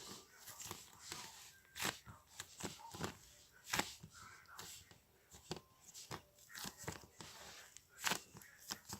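Irregular sharp clicks, taps and rustles, like objects being handled, about one or two a second, with faint voice-like fragments in between.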